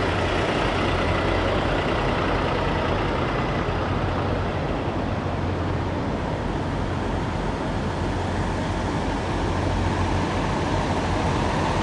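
Steady low rumble of parked diesel semi trucks idling, with an even wash of noise over it.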